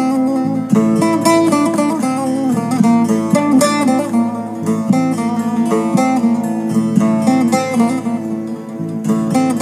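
Turkish bağlama (saz) playing a slow instrumental melody, its strings plucked with many quick repeated strokes.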